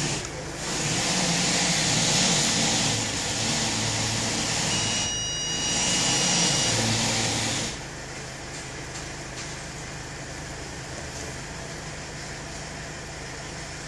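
A car idling under a loud steady rushing noise, with a high steady electronic tone for under two seconds about five seconds in. The rushing noise cuts off suddenly at about eight seconds, leaving a quieter steady hum.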